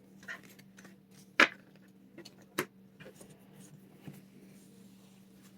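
Trading cards being handled and set down on a table: a few scattered light clicks and taps, the loudest about a second and a half in, over a faint steady hum.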